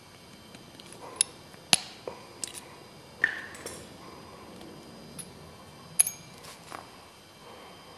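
Small metal hand tools clicking and tapping against a miniature pneumatic landing-gear cylinder as its end cap is worked off. The sharp clicks come at irregular intervals, and one about three seconds in leaves a short metallic ring.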